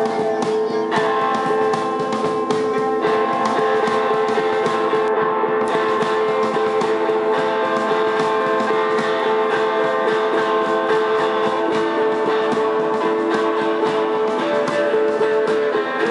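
Live band of two electric guitars, bass guitar and drum kit playing, with held guitar chords ringing over steady drum and cymbal hits.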